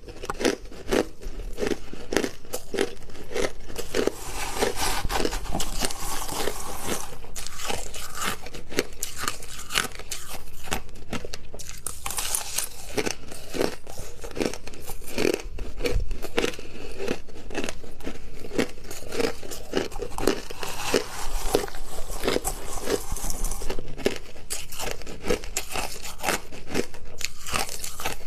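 Close-miked crunching and chewing of hard crushed ice: a dense, continuous run of sharp cracks as the ice is bitten and ground between the teeth.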